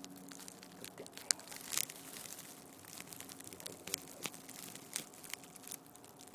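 Grass rustling and crackling close to the microphone, with scattered small sharp clicks.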